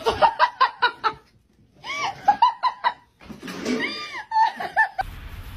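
A person laughing in quick bursts of short pulses, breaking off for a moment about a second and a half in and then laughing again. About five seconds in it gives way to a steady background hiss.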